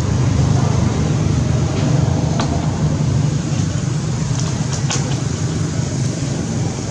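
Steady low engine hum, with two short sharp clicks about two and a half and five seconds in.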